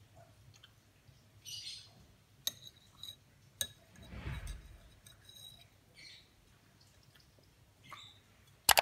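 Metal spoon clinking and scraping on a ceramic plate as a sticky dessert is cut and scooped: a few sharp clinks in the middle, with short, faint high chirps in between.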